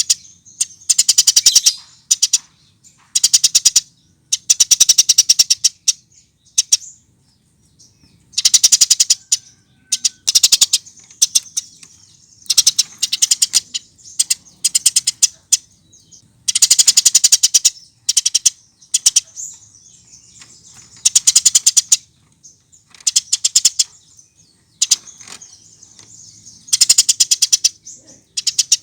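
Eurasian tree sparrow calling in bouts of rapid, high chattering chirps, each bout about a second long, repeating every second or two.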